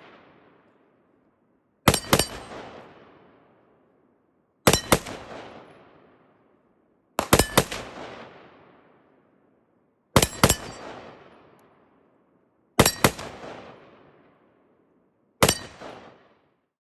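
Rifle fire from an IWI Tavor X95 bullpup: six quick strings of two or three shots, about every two and a half to three seconds, each ringing out in a long fading echo.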